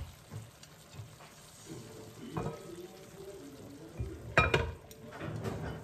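Kitchen tongs clicking and scraping in a pan as spaghetti is served onto a plate, then a glass pot lid set down onto the pan with a clatter about four and a half seconds in, the loudest sound.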